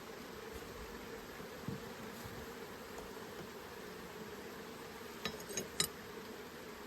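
Honeybees buzzing steadily around an open hive, with three sharp clicks close together about five seconds in.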